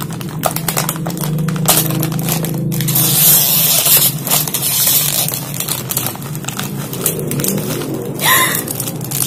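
A plastic chip bag crinkling in the hands and then torn open with a loud rip of crackling plastic about three to five seconds in, over steady background music.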